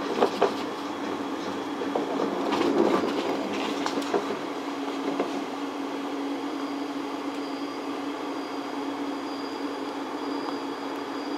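Skyrail rope-driven suspended car heard from inside as it leaves the station: a steady running hum with scattered knocks and clatters of the running gear in the first few seconds, and a faint high whine from about six seconds in.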